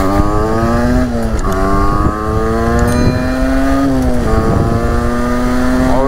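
Derbi X-treme two-stroke dirt bike engine with a Stage6 kit accelerating hard. Its pitch climbs, drops sharply as he shifts up a gear about a second and a half in and again about four seconds in, then climbs again.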